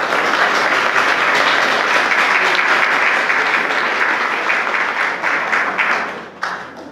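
Audience applauding, dense and steady, dying away over the last second or so.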